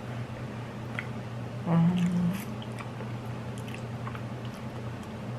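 Close-up eating sounds of a person chewing spicy ramen noodles, with small wet mouth clicks, over a steady low hum. About two seconds in, a short hummed voice sound stands out.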